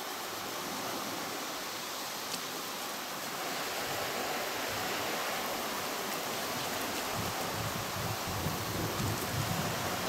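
A knitted wool piece being squeezed and kneaded by hand in a bucket of hot soapy water, giving a steady sloshing and squelching of suds; the wool is being agitated so that it felts.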